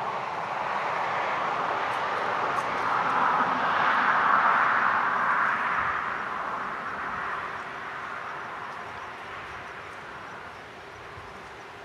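A vehicle passing by, a steady hiss that swells to its loudest about four to five seconds in and then slowly fades away.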